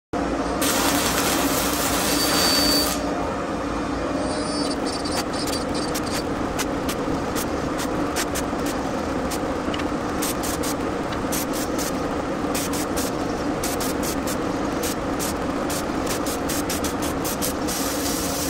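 Electric arc welding on a steel frame: a steady sizzling arc with a dense run of sharp crackles, a little louder in the first few seconds.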